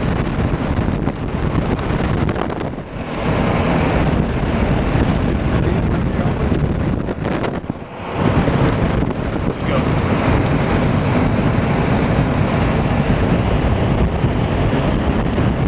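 Strong storm wind near a large tornado blowing hard across the microphone: a loud, steady rush that drops out briefly about three seconds in and again near eight seconds.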